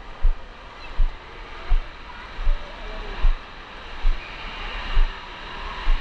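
Indoor water park ambience: a steady wash of rushing and splashing water, with a deep thump about every three-quarters of a second.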